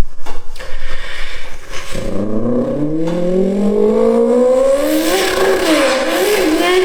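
A car engine accelerating: after a few short knocks, its pitch rises steadily for about three seconds, then wavers up and down.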